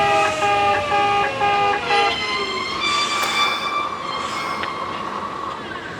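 Electronic alarm of a Kintetsu station-premises level crossing giving its 'pe-pe-pe' beep about twice a second, which stops about two seconds in. A train runs past at the same time, with a tone that falls in pitch and then holds steady as it fades.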